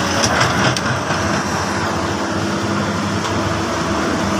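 Komatsu PC200 hydraulic excavator's diesel engine running steadily under load as the machine swings its arm and bucket of soil, with a few light clicks near the start.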